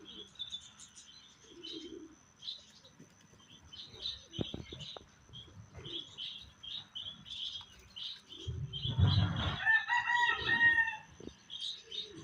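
Birds calling: many short, high chirps throughout, with a louder, longer pitched call from about eight and a half seconds to eleven seconds in.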